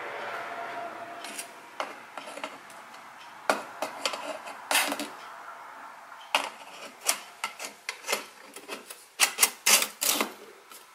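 Steel wire-mesh element of a Land Rover Series oil bath air filter being fitted into its oil-filled steel bowl: metal rubbing and scraping, with a string of sharp clicks and knocks that come thickest near the end as it is seated.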